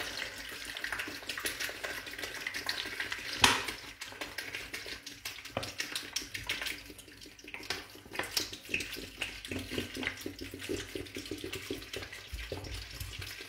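Water poured from a plastic bottle down the inside wall of a stainless steel stockpot, splashing onto packed artichokes as the pot is filled. A single sharp knock stands out about three and a half seconds in.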